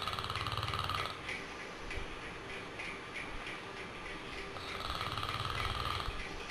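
Snoring: two long, rattling snores about five seconds apart, one at the start and one near the end.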